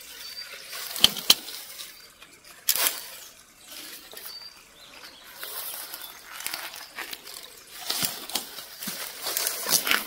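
Grass and leaves rustling and crackling as someone pushes through dense undergrowth, in irregular bursts with a couple of sharp snaps about a second in.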